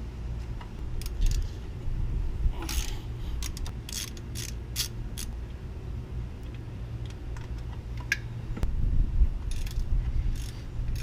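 A hand ratchet with a 10 mm socket clicking as bolts are turned on a Chrysler 3.5L V6. The clicks come in short runs, a cluster in the middle and another near the end, over a steady low hum.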